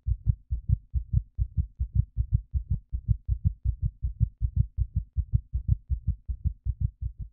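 A low, thudding pulse in the soundtrack, repeating evenly at about four beats a second.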